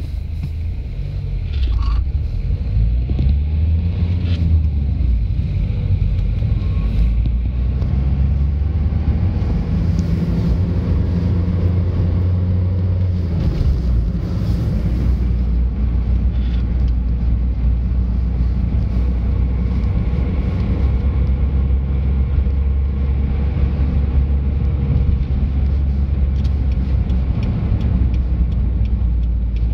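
Car engine and road noise heard from inside the cabin while driving: a steady low rumble, with the engine note shifting a few times as the car changes speed.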